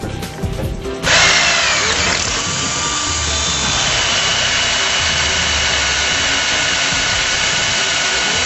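Electric drill boring through a Durafix aluminium weld on an aluminium tube. It starts about a second in and runs steadily as the bit cuts the metal.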